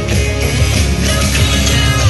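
Loud music with a strong, steady bass line, played over a PA speaker.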